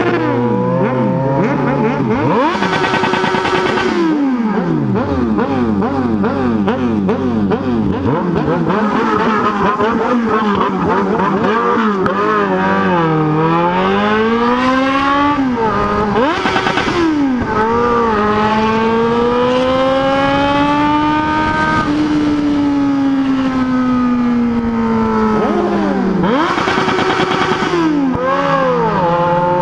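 Yamaha XJ6 N's inline-four motorcycle engine running loud while ridden, revving up and down again and again, with several sharp drops and climbs in pitch.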